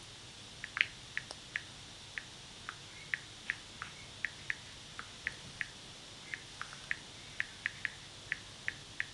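A string of short, light ticks, about two dozen at an uneven pace of roughly three a second, over faint room hiss.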